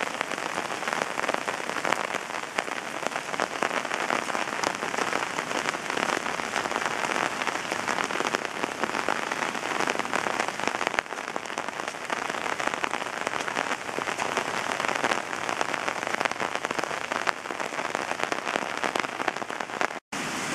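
Steady rain falling on foliage and ground: a dense, even patter of drops, cut off briefly near the end.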